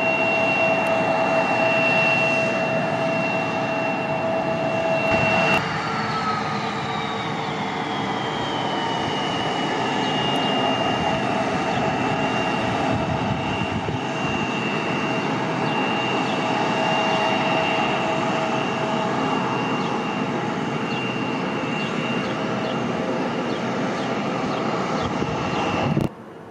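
Bombardier CRJ900's rear-mounted General Electric CF34 turbofan engines running at idle with a steady high whine. About five and a half seconds in the sound changes abruptly and the whine slides down in pitch to a lower steady tone. It breaks off suddenly near the end.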